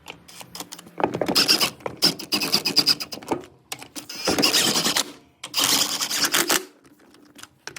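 A power tool run in about five short bursts of a second or so each, rattling with a thin high whine, as parts are unbolted and wheels are fitted.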